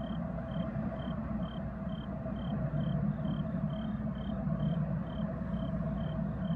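Crickets chirping steadily, about two short high chirps a second, over the steady low rumble of an approaching diesel locomotive.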